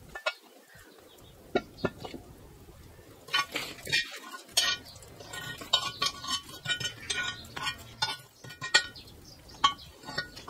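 Metal lid-lifter hook clinking and scraping against a cast-iron camp oven's lid, with iron-on-iron knocks and ringing clinks as the coal-covered lid is worked loose and lifted off. The knocks come singly at first, then thicker through the middle.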